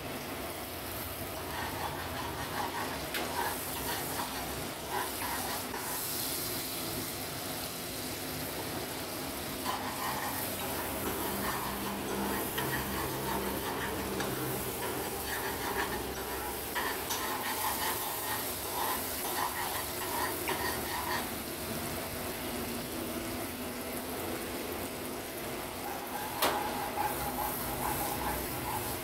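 Oil sizzling in a small wok as seeds fry, with a metal spoon stirring and scraping the pan. A sharp clink near the end.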